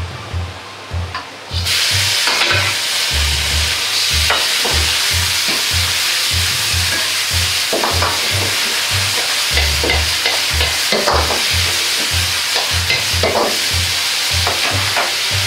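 Chicken and eggplant stir-frying with ginger-soy sauce in a smoking-hot wok. A loud sizzle starts suddenly about a second and a half in and keeps going as the sauce cooks down fast. A metal ladle stirs and scrapes against the wok throughout.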